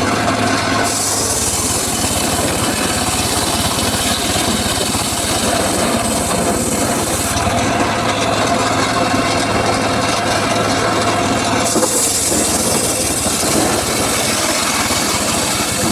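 Homemade circular saw, engine-driven, running steadily and cutting through teak wood. The blade bites in for two long cuts, one starting about a second in and lasting some six seconds, the other starting about twelve seconds in, with a short stretch of free running between them.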